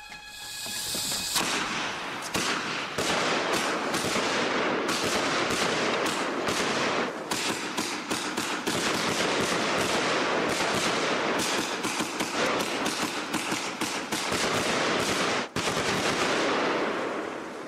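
Consumer firework cake (multi-shot battery) firing a long, rapid string of cracks and bangs after a short hiss at the start, with one brief break about fifteen seconds in.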